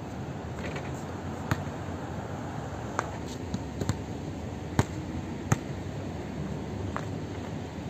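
A basketball bouncing on a hard outdoor court: about six sharp, separate smacks at irregular intervals over a steady background hum.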